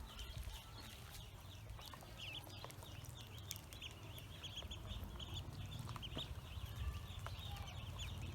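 Pekin ducklings peeping nonstop, a dense chorus of short high chirps each dropping slightly in pitch, over a low steady rumble.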